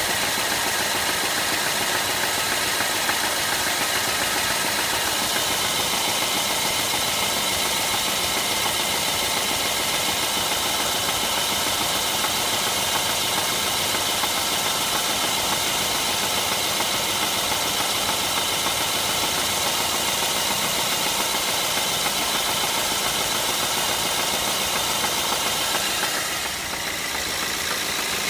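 BMW N43 four-cylinder petrol engine of a 2009 E90 318i running steadily at idle, with a knock whose cause the owner cannot work out. The sound briefly drops near the end.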